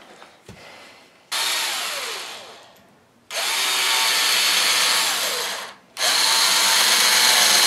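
Cordless drill with a 3/16-inch bit boring into the base of a mule deer antler, run in three bursts of about two seconds each, the motor speeding up and winding down with each trigger pull.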